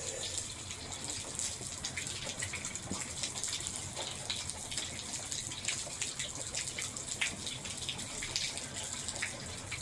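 Steady rain with water running and dripping. Scattered sharp ticks come from drops landing close by.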